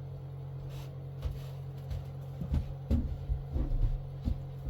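Comic books being handled between titles: a few soft bumps and light rustles, mostly from about two seconds in, over a steady low hum.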